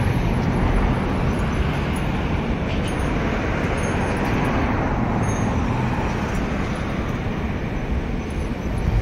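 Steady background noise of city road traffic, an even rumble without distinct events.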